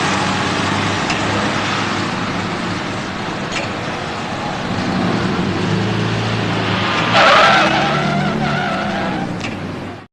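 Car chase effect: a car engine running hard under a rush of tire and road noise, with a loud tire squeal about seven seconds in. The sound cuts off abruptly at the end.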